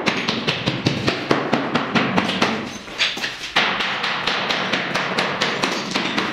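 Club hammer striking a concrete column in quick repeated blows, about four to five a second, with a short lull about three seconds in. The concrete breaks away easily, which the engineer puts down to its low cement content.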